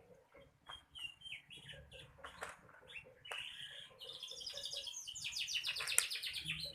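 Small birds chirping: short high chirps at first, then a rapid, fast-repeating chatter that grows louder over the last few seconds.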